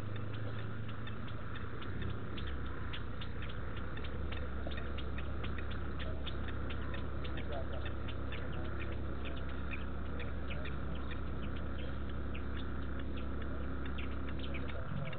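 Night chorus of frogs and insects at a waterhole: dense, fast clicking calls over a steady trilling background. A low steady hum runs underneath and cuts off shortly before the end.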